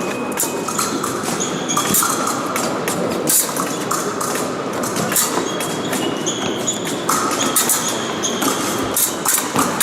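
Fencing hall during an épée bout: rapid clicks and clatter of blades and feet on the pistes over a steady hall din, with several short electronic tones from the scoring apparatus sounding and stopping.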